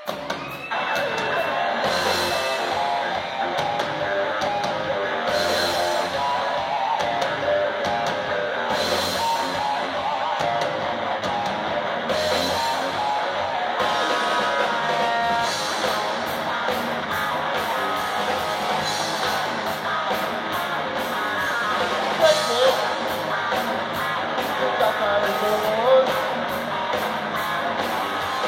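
Rock music with guitar and drums playing steadily, with a cymbal-like splash about every three and a half seconds.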